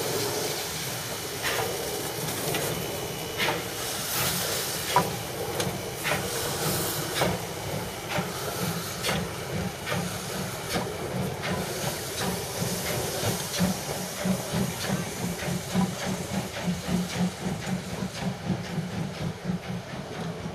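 Class 78 steam tank locomotive moving slowly with a continuous steam hiss and sharp exhaust chuffs about once a second. Steam is blowing out around the cylinders. In the second half a faster, low pulsing beat comes in.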